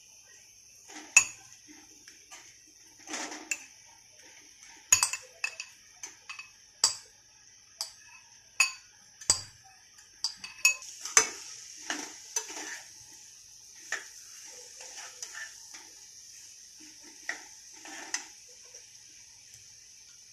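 Spatula knocking and scraping against a kadhai as mashed boiled potatoes are stirred into the tempering: irregular clinks and knocks, some sharp, over a faint steady hiss.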